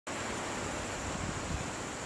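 Steady outdoor hiss of wind on the microphone, with gusts of low rumble in the second half and a thin, continuous high insect drone.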